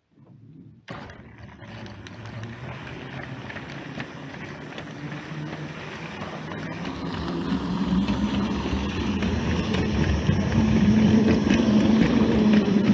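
A train running, starting suddenly about a second in and growing steadily louder, with a low hum and many small rattling clicks.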